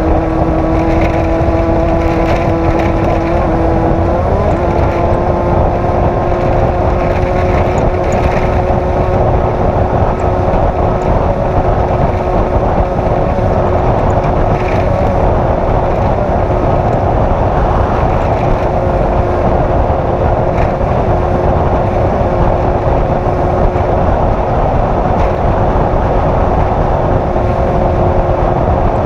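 Off-road race vehicle's engine running hard at a steady, high speed over loud, constant noise, its note shifting slightly about four seconds in.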